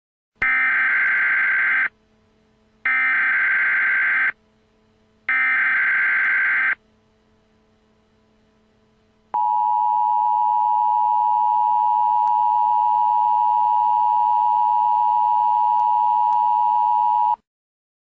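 Emergency Alert System header: three bursts of SAME digital data tones, each about a second and a half long, a second apart. After a pause, the EAS two-tone attention signal is held steady for about eight seconds and then cuts off. This signal announces an emergency alert broadcast, here a severe thunderstorm warning.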